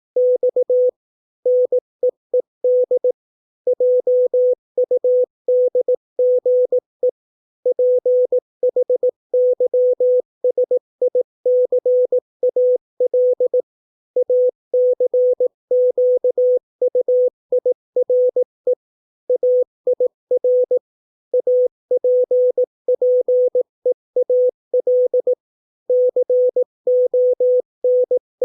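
Morse code sent at 18 words per minute as a single steady mid-pitched tone keyed on and off in dots and dashes, spelling English words, with longer pauses between the words.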